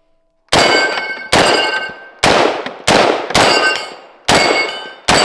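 Seven semi-automatic rifle shots from a G36 chambered in 5.56 mm, fired at an uneven pace about half a second to a second apart, each followed by a short metallic ring.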